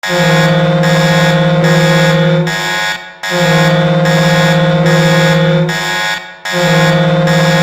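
HC Sochi's recorded hockey goal horn, a loud pitched horn blasting to signal a goal. It sounds in long blasts of about two and a half seconds each with short breaks between: two full blasts, then a third starting near the end.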